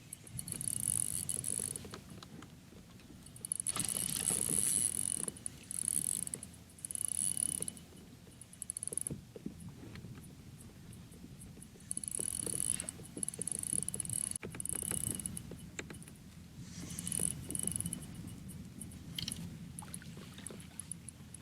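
Fishing reel being cranked in repeated whirring bursts of a second or two while a hooked bass is reeled in, with low water and kayak-hull noise underneath.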